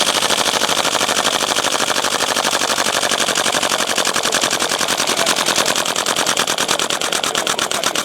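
Airsoft M4 gas blowback rifle firing on full auto: a fast, unbroken stream of sharp reports from the bolt cycling on gas.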